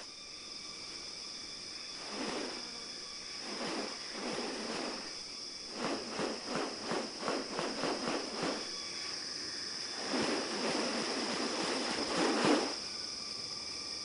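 Steady high-pitched insect chorus of tropical rainforest, with short hissy bursts of another sound: a few single ones, then a quick run of about eight in a row midway, then a longer stretch near the end.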